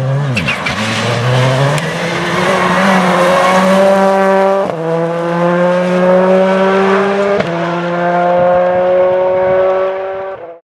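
Ford Focus WRC rally car's turbocharged four-cylinder engine under hard acceleration, its pitch climbing steadily through the gears with two upshifts, about halfway through and again a few seconds later. The sound cuts off suddenly near the end.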